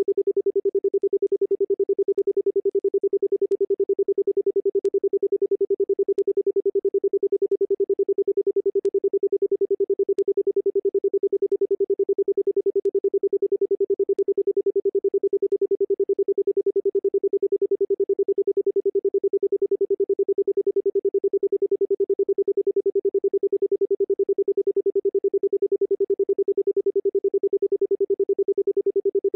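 A steady, pure electronic sound-therapy tone held at one pitch, pulsing rapidly and evenly in loudness.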